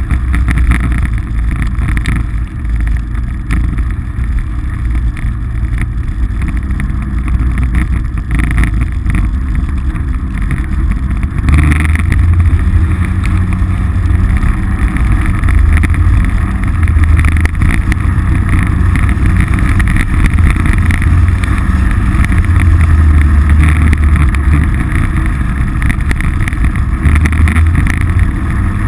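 Polaris RZR side-by-side's engine running steadily under way, with road noise. After about twelve seconds the engine gets louder, with a stronger low drone.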